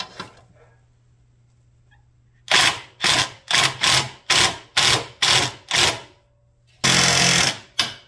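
Cordless impact wrench hammering on a gear puller's centre screw in about nine short trigger bursts, then one longer burst near the end. The puller is being driven against a rusted-on chipper wheel that does not come off.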